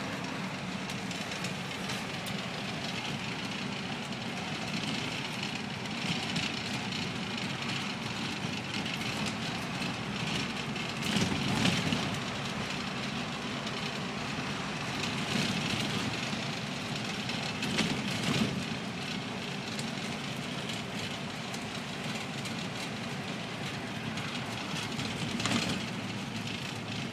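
Routemaster double-decker bus on the move, heard from the front of the top deck: steady engine and road noise with light rattling, swelling louder three times.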